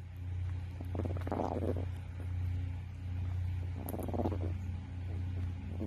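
Yorkie mix growling low and steadily, swelling into two rougher, louder growls about a second in and about four seconds in: a grumpy growl at being disturbed from sleep.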